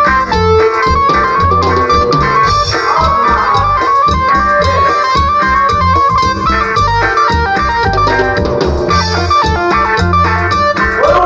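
Instrumental band music: a guitar plays a melody line of quick repeated notes over a steady bass and drum kit.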